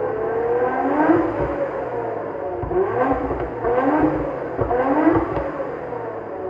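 Nissan Skyline GT-R BNR32's RB26DETT twin-turbo straight-six heard at the tailpipe through a SACLAM muffler, Fujitsubo equal-length front pipe and SARD catalyser, revved in quick throttle blips about one a second, each rising and dropping back, easing toward idle near the end.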